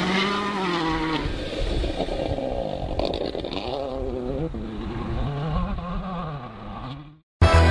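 Citroën DS3 WRC rally car's turbocharged 1.6-litre four-cylinder engine, its pitch rising and falling several times as it revs up and down. It fades out and cuts off near the end.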